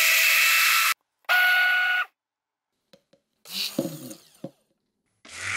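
Food processor motor running as it blends eggs and boiled mustard spinach into a green paste. It cuts off about a second in, then gives one more short pulse of under a second. Softer clattering and handling sounds follow in the second half.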